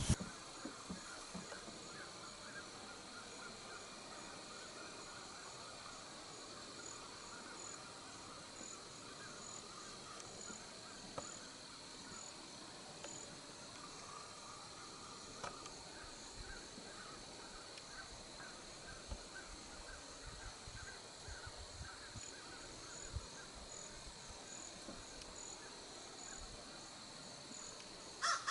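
Faint outdoor field ambience: a steady high drone with faint repeated chirping, and a few soft clicks.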